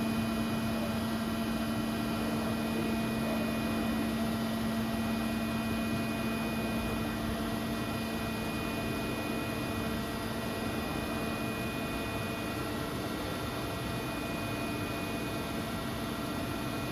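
Steady electric hum of a powered-up profile bending machine standing idle, a constant tone with fainter overtones over an even machine noise that does not change.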